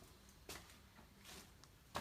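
Faint footsteps on a gritty, debris-strewn floor: a few soft scuffs and crunches.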